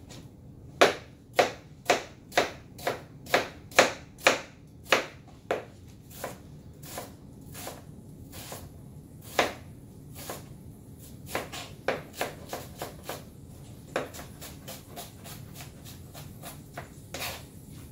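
Chef's knife chopping an onion on a cutting board, the blade knocking sharply on the board about twice a second for the first five seconds, then lighter, uneven taps as the dicing goes on.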